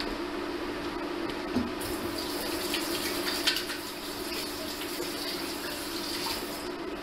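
Liquid heating in an enameled cast iron pot on an induction cooktop, giving a hissing, crackling sizzle from about two seconds in until near the end, over a steady hum.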